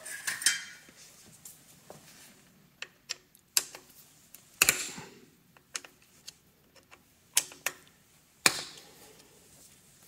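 Scattered sharp metallic clicks and clinks of a hex key working the fasteners on a Monarch 10EE lathe's gear-train plate, loosening them to adjust the gear spacing. The louder clinks fall about three and a half, four and a half, seven and a half and eight and a half seconds in.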